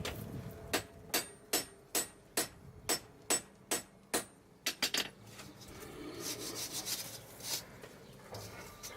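Hand hammer striking a hot steel billet on an anvil: forge-welding blows, about a dozen in quick even succession with a slight metallic ring. A scraping sound follows over the last few seconds.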